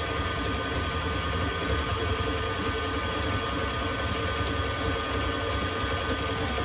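Electric stand mixer running steadily with a dough hook kneading yeast dough, set a little above its slowest speed: a constant motor whine over a low hum.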